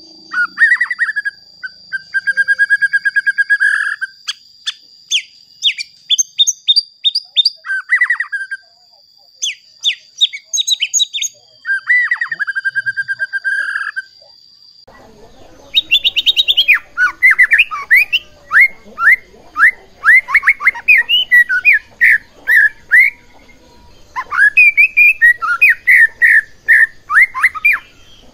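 White-rumped shama singing loudly in varied phrases of clear whistles, buzzy trills and fast runs of sharp repeated notes. About halfway through the recording changes to more background hiss and a denser, faster run of notes.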